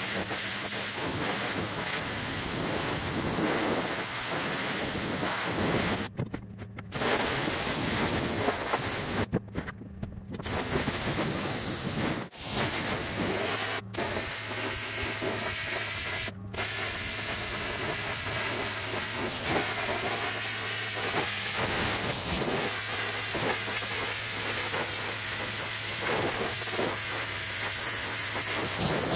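Pressure washer lance jetting water onto wooden decking: a steady, loud hiss of spray, cut off briefly a few times in the first half.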